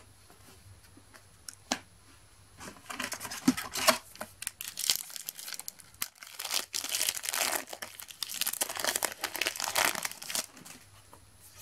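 A foil trading-card booster packet being torn open and its wrapper crinkled as the cards are pulled out, starting about three seconds in.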